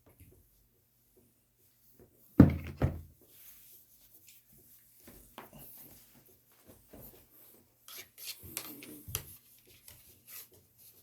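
Handling noises: objects being moved and rubbed against a hard surface, with a sharp knock a little over two seconds in and a stretch of scraping near the end.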